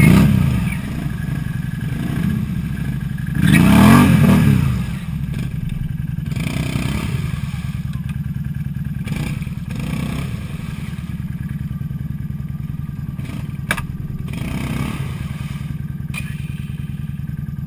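Can-Am Outlander ATV engine running steadily and revved hard in surges, once at the start and louder about four seconds in, with smaller blips later, as the ATV tries to pull out while stuck in mud. A single sharp click sounds near the end.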